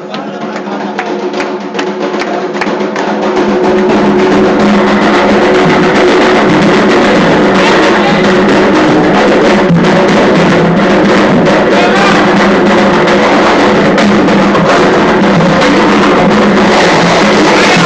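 Ceremonial drumming and percussion with chanted singing. It grows louder about three to four seconds in and stays dense and loud.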